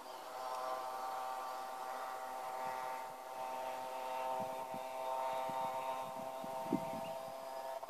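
Cheerson CX-20 quadcopter on an F330 frame, its four brushless motors and propellers giving a steady whining buzz in flight that grows louder about a third of a second in, with slight shifts in pitch. A brief low bump stands out near the end.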